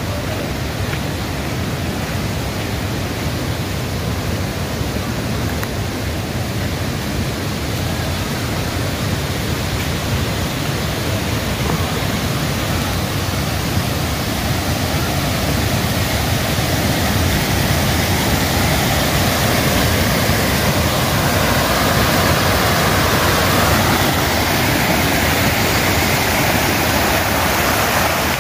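Rain-swollen muddy mountain stream rushing over boulders and loose stones, a steady noise of water that grows louder toward the end.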